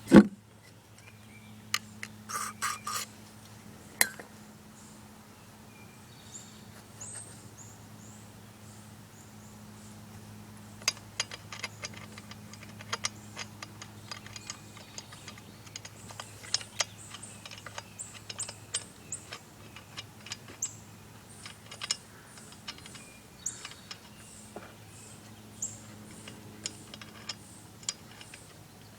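Scattered light clicks and taps of small parts and tools being handled, the loudest right at the start and a cluster a couple of seconds in, over a steady low hum. Faint high chirps, like small birds, repeat through the second half.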